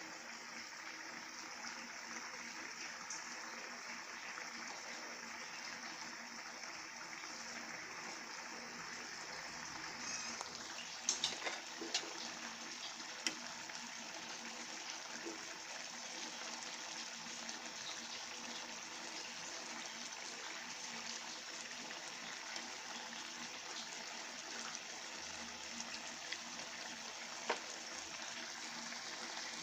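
Taro leaves in coconut milk boiling hard in a pan, a steady bubbling. A ladle clinks against the pan a few times around the middle.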